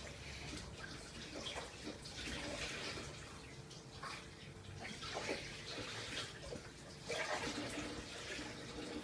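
Cats eating tuna from a small tin can: wet, irregular licking and chewing smacks, with small clicks of tongues and teeth against the can.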